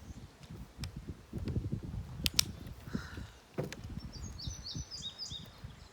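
A songbird calling a quick series of short, high, falling notes about four seconds in, over a low rumble and scattered clicks from wind and handling of the microphone.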